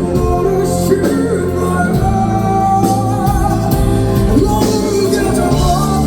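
Male vocalist singing live with a raspy, scratchy voice over band accompaniment, with held notes that waver and several drum or cymbal hits.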